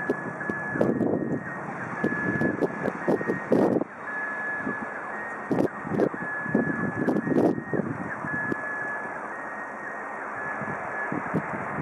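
Train running through the station, with irregular clacks and knocks from its wheels on the track over a rumbling running noise. A high thin tone sounds in short dashes about once a second.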